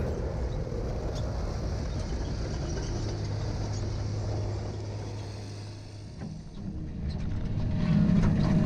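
Tracked feller buncher's diesel engine running with a steady low drone. It dips briefly about six seconds in, then grows louder near the end as the machine works its buncher head.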